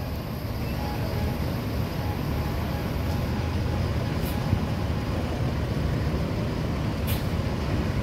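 Diesel engine of an inter-city coach running with a steady low drone as the bus moves slowly across the terminal, with two short faint hisses about four and seven seconds in.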